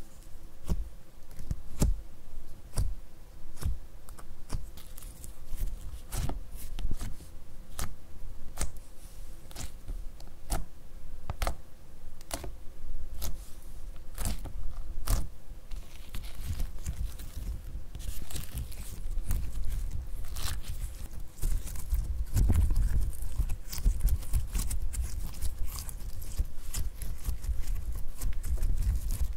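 Slime being worked by hand close to the microphone. Through the first half it gives a string of sharp clicking pops about every half second as fingers poke and press it. In the second half, as it is squeezed, stretched and folded, it turns to a denser, continuous wet squishing.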